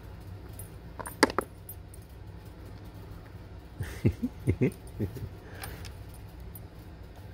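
Plastic polyhedral dice clicking and knocking in a felt-lined dice tray as a cat bats them with its paw: a couple of clicks about a second in, then a run of knocks in the second half.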